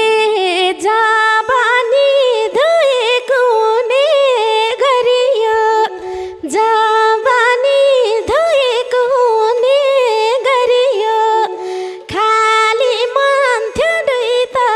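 A woman sings a Nepali dohori verse solo, in long ornamented phrases with short breaks between them. The madal and dholak drums have dropped out, leaving the voice almost bare.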